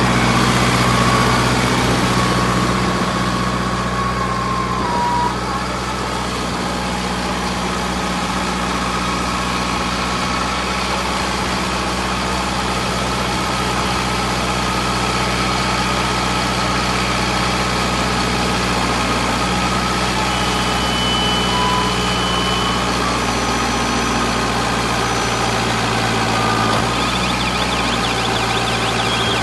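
Straw and husk baler machine running, a steady engine-like drone with a low hum that shifts slightly about five seconds in and again near the end.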